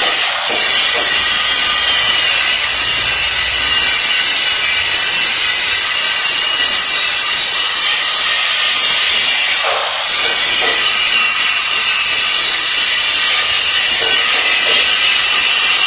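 Handheld angle grinder grinding a welded steel angle-iron frame: a loud, continuous hiss with a steady whine in it. The hiss lets up briefly about half a second in and again around ten seconds in.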